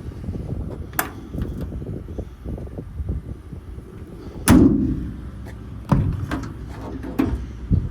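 Metal lids and latches on a truck's service body being handled: a sharp click about a second in, a heavy metal thud midway, then two more sharp knocks near the end, over a low rumble.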